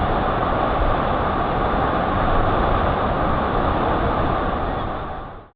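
Steady rushing roar of wind and water on a speedboat ride on the river below the falls, fading out near the end.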